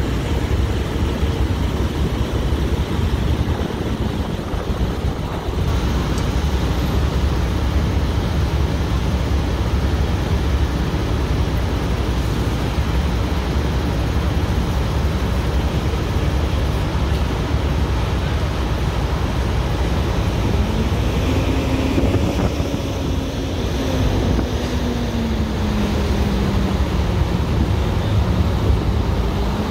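Steady low rumble and roar of a semi-truck cab burning, mixed with wind noise on the microphone. From about twenty seconds in, a faint tone slowly rises and falls over the roar.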